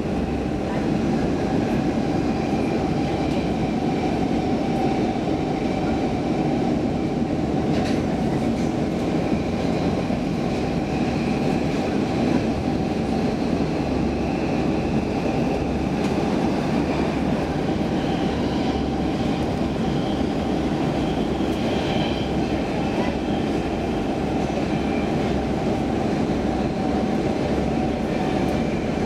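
Stockholm Metro C15 train running steadily through a tunnel, heard from inside the carriage: a continuous rumble of wheels on rails with a faint steady whine above it.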